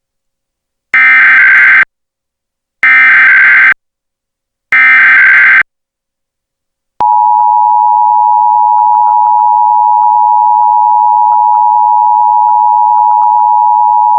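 Emergency Alert System broadcast tones: three harsh digital data bursts of the SAME header, each about a second long and about two seconds apart. About seven seconds in, the steady EAS attention signal tone starts and holds; it announces an alert, here the monthly statewide test.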